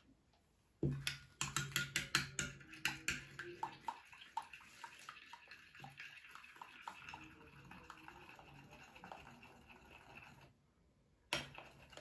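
A metal teaspoon stirring kefir in a small glass bowl. It starts with a quick run of sharp clinks against the glass, then turns to a softer, steady stirring with light taps, which stops about ten and a half seconds in. One more clink comes near the end.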